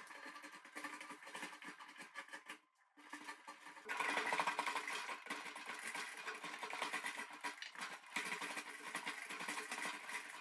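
Draw knife scraping bark off a tree branch in quick, rasping strokes. There is a short break about three seconds in, and the scraping is louder after it.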